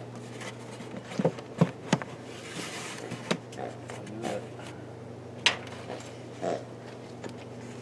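A wooden beehive cover being set down onto the hive box over the frames, giving a few sharp knocks of wood on wood.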